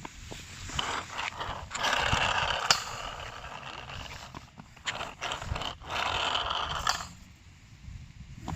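Electric RC toy car driving in short spurts: its motor and gears whir, with scattered clicks, loudest about two seconds in and again about six seconds in.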